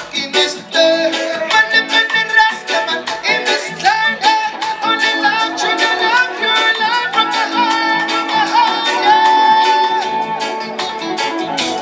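Live band music: electric guitar and drums playing at a steady beat, with singing over the top.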